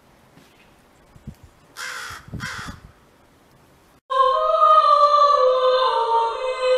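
A crow caws twice in quick succession, two harsh calls. About four seconds in, louder choir-like music with sustained voices starts abruptly.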